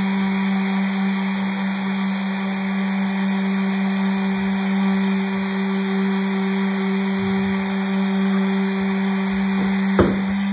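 Electric random orbital sander running steadily on a wooden veneer inlay, sanding it flat, with a steady motor hum under the rush of the pad. A sharp click comes near the end.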